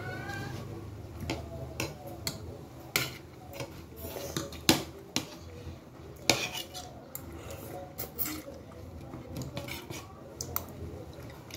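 A metal spoon and fork clink and scrape against a plate of rice, with irregular taps throughout. Two sharper clinks come a little before and a little after the middle.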